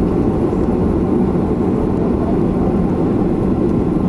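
Steady aircraft noise: an even, low rumble with no distinct events and a faint high whine.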